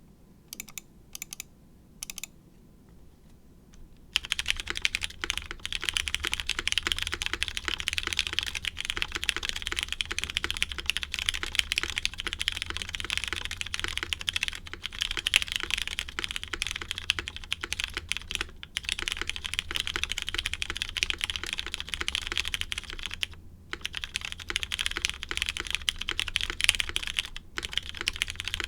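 Typing on a custom UTD 360c mechanical keyboard with lubed Cherry MX Hyperglide Brown tactile switches in a polycarbonate plate, under GMK keycaps. A few single keystrokes come first, then a pause of about two seconds. From about four seconds in, fast continuous typing follows, broken by brief pauses three times.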